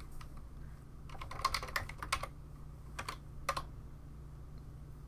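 Computer keyboard typing: a quick run of key clicks about a second and a half in, then two more single keystrokes about a second later.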